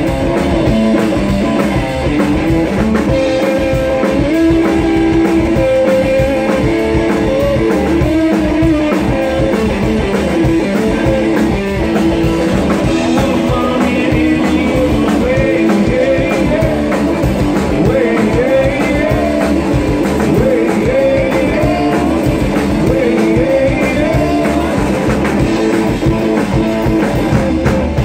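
Live rock and roll band playing: electric guitar lead over upright bass and a drum kit.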